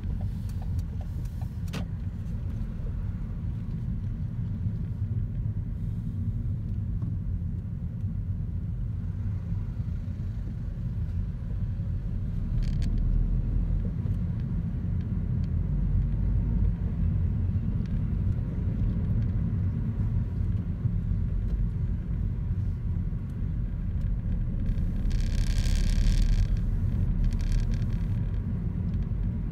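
Steady low rumble of a car's engine and tyres heard from inside the cabin while driving, with a brief hiss near the end.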